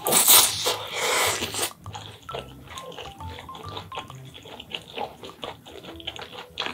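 A loud slurp of instant noodles for about the first second and a half, then quieter, wet chewing with small clicks, over light background music.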